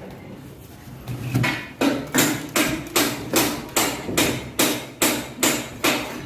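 Hammer blows struck in a steady rhythm, about two and a half a second, starting about a second and a half in after a quieter stretch.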